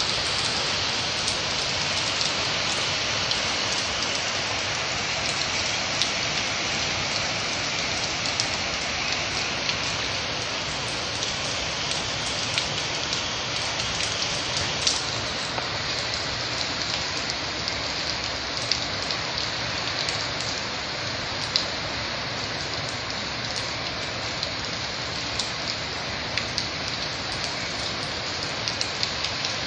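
Heavy storm rain pouring down steadily onto a swimming pool and its screen enclosure, an even hiss with many sharp drop ticks scattered through it.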